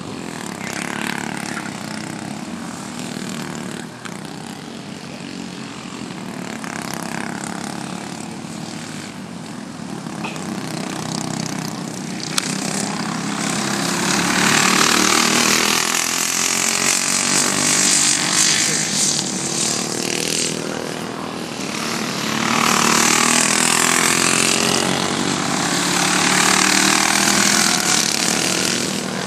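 Four-stroke Briggs & Stratton racing kart engines revving as karts lap the track, the pitch rising and falling through the corners. The sound swells and fades as karts pass and is louder in the second half.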